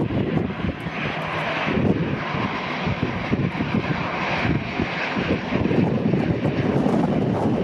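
Jet engines of an Airbus A320-family airliner running at taxi power, a steady whine and hiss that swells and eases as it comes closer. Wind buffets the microphone with a gusty low rumble underneath.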